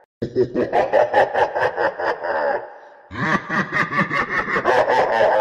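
Evil laugh sound effect: a villain's laugh in quick repeated pulses, heard twice, with a short break about two and a half seconds in.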